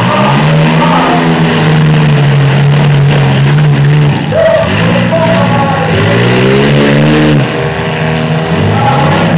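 Demolition-derby mini trucks' engines revving hard, the pitch climbing and dropping several times as the trucks accelerate and back off, with one engine held at a steady high rev for a couple of seconds early on.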